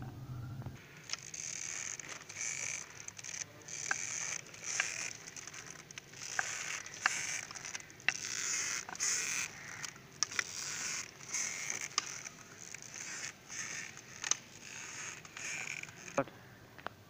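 Hand-cranked metal seviyan (vermicelli) press squeaking and creaking as its handle is turned and dough is forced through the die, a little over one high-pitched squeak a second, with sharp clicks in between.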